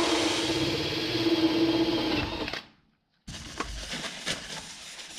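Small electric motor of a power drill running steadily for about two and a half seconds, then stopping. After a short break, a few knocks and clicks from parts being handled.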